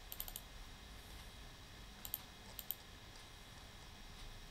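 Faint clicks of a computer mouse, coming in quick pairs: a few right at the start, then two more pairs a little after two seconds in.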